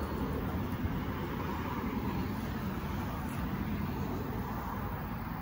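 Steady low background rumble with no distinct events in it.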